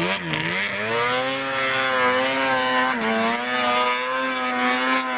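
An engine running at high revs: its pitch wavers, climbs over the first second and then holds steady, dipping briefly about three seconds in before settling again.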